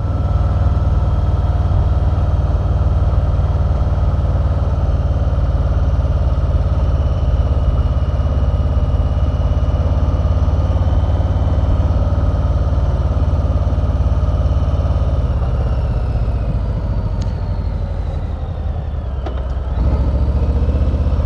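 Harley-Davidson Street Bob's Milwaukee-Eight 107 V-twin running on the road with a deep, steady rumble; late on the revs fall away and the sound eases, then it picks up again just before the end.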